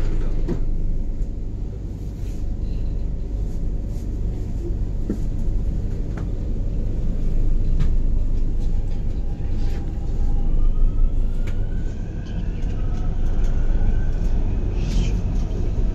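Interior of an MTR South Island Line S-Train pulling out and picking up speed: a steady low rumble of the running train, with the traction motors' faint whine rising in pitch about ten seconds in.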